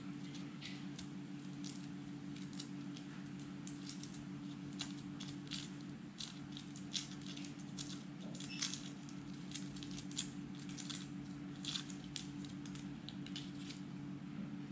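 Shell of a hot boiled egg being cracked and peeled by hand: scattered small crackles and clicks over a steady low hum.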